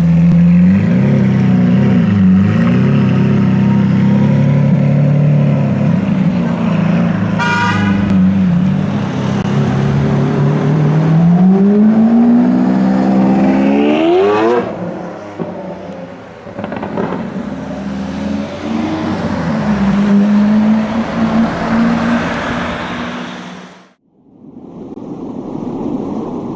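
Lamborghini Aventador LP700-4's V12 engine running, with small throttle blips, then revving up in a rising glide as the car accelerates away, dropping off about 14 seconds in. A second, milder swell in revs follows before the sound cuts off abruptly near the end.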